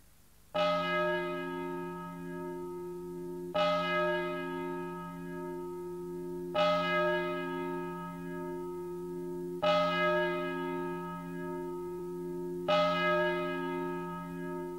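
A single large bell, hung in a wheel on an open frame and swung by a hand-pulled rope, tolling five strokes about three seconds apart. Each stroke rings on with a wavering hum until the next.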